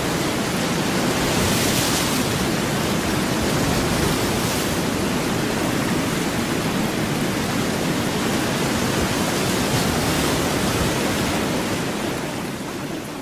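Steady, even rushing noise with no tune or voice to be heard: the masking noise bed of a subliminal audio track. It fades down near the end.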